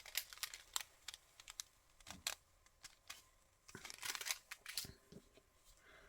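Close handling of a small packet of sequin mix and its paper packaging: scattered light crinkles and clicks, busiest about four seconds in, with a couple of soft knocks.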